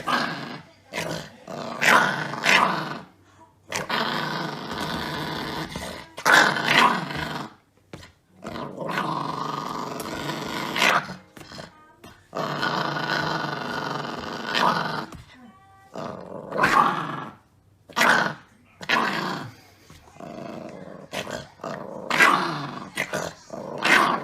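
Chihuahua puppy play-growling: long, sustained growls of a few seconds each, broken up by shorter, sharper bursts. It is rough play that sounds fiercer than it is.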